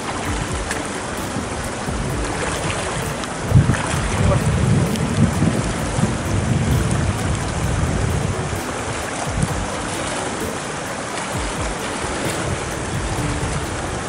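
Shallow water sloshing and splashing around a wader's legs, with wind buffeting the microphone in low rumbling gusts, strongest from about three and a half to eight seconds in.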